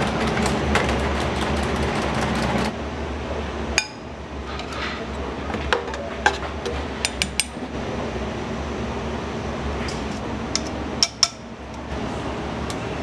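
Ramen-shop kitchen clatter: bowls and utensils clink and knock against each other and the steel counter a dozen or so times over a steady background of kitchen noise. The background is louder for the first few seconds, then drops.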